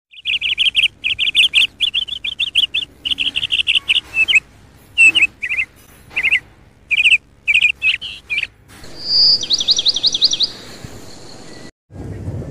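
Bird song: short phrases of rapid, chirping trills, then a faster run of sweeping higher notes. It stops abruptly shortly before a low rumble begins at the very end.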